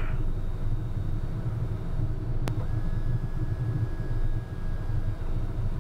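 Cockpit noise of a Cessna Citation CJ2+ taxiing with its twin Williams FJ44 turbofans at idle: a steady low hum. There is a sharp click about two and a half seconds in, and a thin steady tone follows it for a few seconds.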